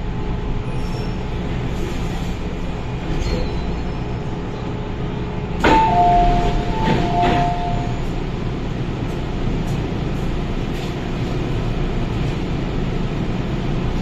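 Metro Cammell M-Train passenger doors opening with a loud clang about six seconds in, followed by a two-note tone sounding twice, over the steady low rumble of the stopped train's equipment.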